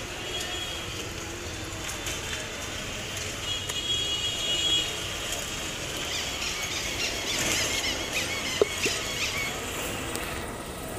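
A high-pitched squeal that comes and goes a couple of times, then wavering high squeaks, with one sharp knock about eight and a half seconds in.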